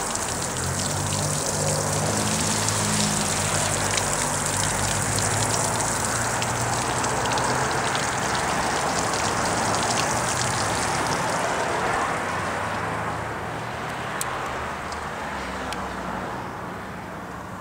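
Water from a garden hose spraying onto an outboard's lower unit and splashing on pavement, a steady hiss that fades out after about twelve seconds. A low engine-like hum runs under it for most of that time.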